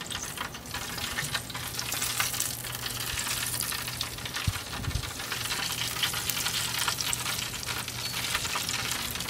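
Fat dripping from a spit-roasted prime rib sizzles and crackles on a hot charcoal and wood fire, with a steady hiss and many small pops.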